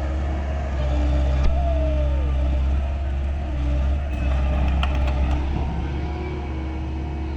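Excavator's diesel engine running steadily with a low hum, with a few short clicks or knocks about four to five seconds in.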